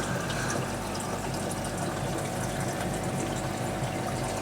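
Aquarium filtration running: steady water noise over a low, even hum.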